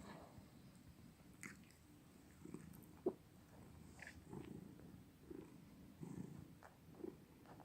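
Domestic cat purring softly, a low rumble that swells and fades with each breath, with a short sharp click about three seconds in.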